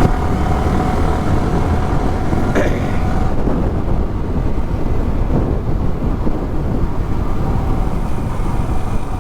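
Wind rushing over a helmet-mounted microphone on a moving motorcycle, a dense low rumble with the bike's engine underneath. A steady mid-pitched tone is heard for the first three seconds, and there is a short click about two and a half seconds in.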